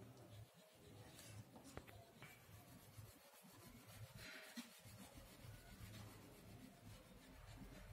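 Faint scratching of a crayon rubbed back and forth on paper while colouring in, slightly louder for a moment about four seconds in.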